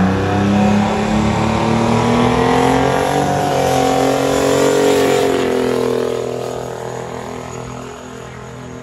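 A drag-racing truck's engine accelerating hard: its pitch climbs, dips briefly about three seconds in, climbs again, then the sound fades away over the last few seconds as the truck pulls off down the strip.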